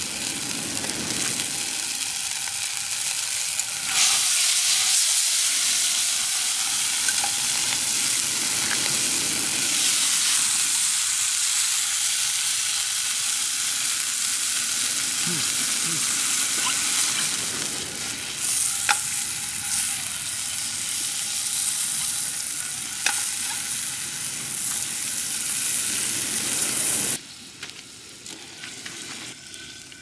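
Food sizzling hard in a frying pan, a dense steady hiss with a few light crackles. It grows louder about four seconds in and cuts off abruptly near the end.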